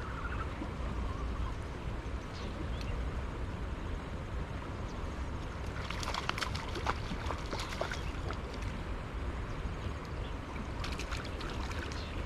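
A hooked fish splashing and thrashing at the water's surface in two bursts, about six seconds in and again near the end, over a steady low rumble.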